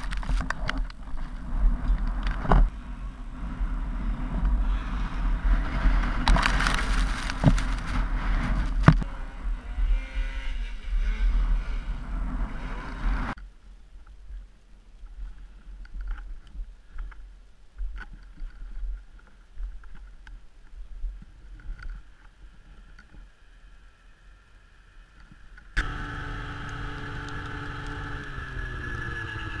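Snowmobile engines running, heard from a rider-mounted camera, with a few sharp knocks in the first half. The sound turns much quieter about halfway through. Near the end an engine comes back in abruptly and runs steadily, its pitch sliding down.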